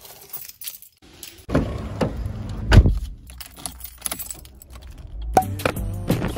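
Car keys jangling and clicking as they are picked up and worked into the ignition, with one heavy thump about three seconds in.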